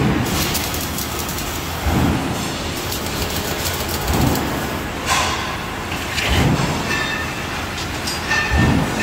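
Machinery running steadily, with a low rumbling surge repeating about every two seconds.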